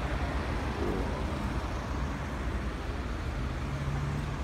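Steady rumble of road traffic from cars passing on a multi-lane road, with a low steady hum joining about three seconds in.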